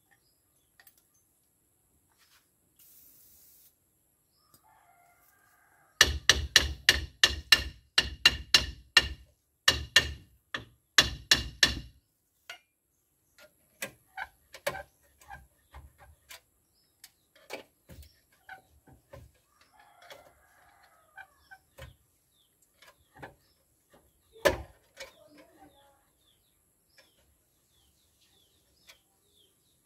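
Run of sharp metal strikes with a ringing tone, about three to four a second for some six seconds, on a seized drum brake of a Toyota Land Cruiser BJ60. Then scattered light clinks of tools on the brake parts and one louder knock near the end.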